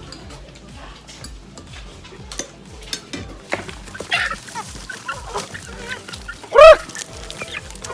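Chickens clucking and calling, with one loud call about two-thirds of the way through.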